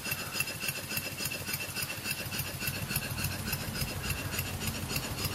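Stuart No 4 single-cylinder vertical model steam engine running on compressed air: a quick, even beat of exhaust puffs with a light hiss. The engine is newly built and still running in, with its cast-iron piston rings bedding in.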